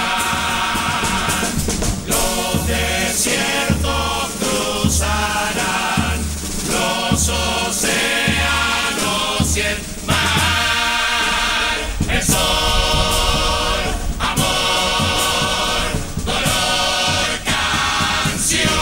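Uruguayan murga chorus of male voices singing together in harmony, over a low drum beat.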